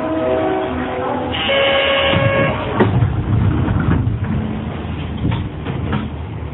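A departure melody of short stepped tones gives way to a steady chime for about a second, then the sliding doors of an Astram Line 6000-series train shut with a thud about three seconds in, followed by low rumbling and a few clicks as the train stands ready to leave.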